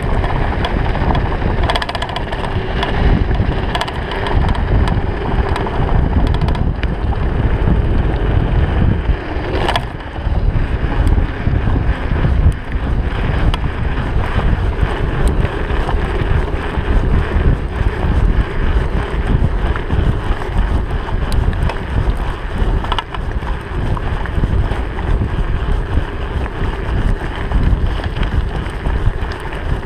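Wind buffeting the microphone of an action camera on a Trek 4500 mountain bike riding fast downhill on a dirt road, over a steady rumble of tyres on the surface. The bike rattles with frequent small clicks, and there is a sharper knock about ten seconds in.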